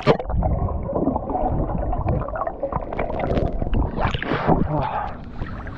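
Swimming-pool water sloshing and splashing close by, with a sharp splash at the start and uneven splashing after it.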